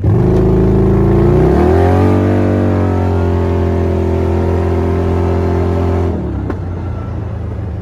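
CFMOTO ZForce side-by-side engine accelerating: it rises in pitch over about two seconds, holds a steady pitch, then drops back to a lower rumble about six seconds in as the throttle comes off.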